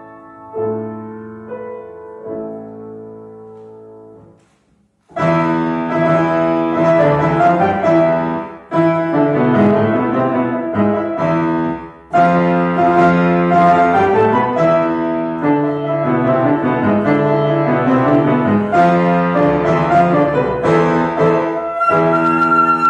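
Grand piano playing a solo interlude: a few soft held chords, a brief break about five seconds in, then loud, fast, dense playing. A flute comes back in with a held note right at the end.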